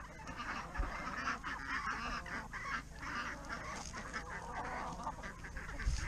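A flock of chickens clucking and squawking in a busy, overlapping chatter as they crowd around and peck at turkey scraps.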